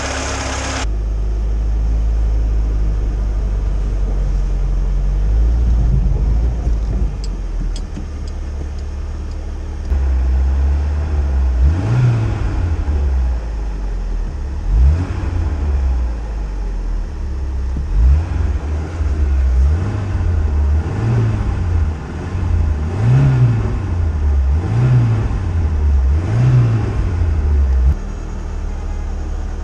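VAZ Zhiguli engine running, first steadily and then revved in short repeated blips, about one every second and a half, stopping suddenly near the end. The revving is done while the cooling system is being bled.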